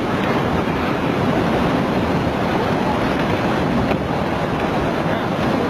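Swollen floodwater rushing past in a steady, loud, unbroken torrent.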